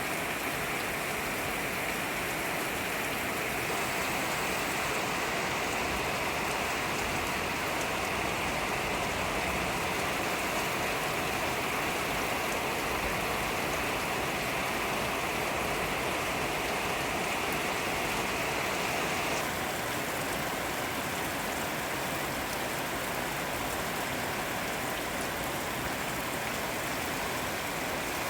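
Steady rain falling, an even hiss of drops on surfaces with no breaks. Its tone shifts slightly about four seconds in and again near twenty seconds.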